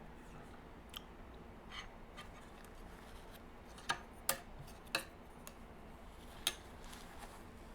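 Scattered sharp clicks and taps of eating, a utensil against a cake container, with the four loudest in the middle and a faint steady room hum beneath.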